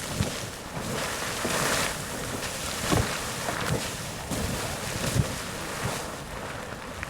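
Sawmill Geyser, a fountain-type hot-spring geyser, erupting: a steady rushing wash of water broken by irregular splashing bursts about once a second or two, with wind buffeting the microphone.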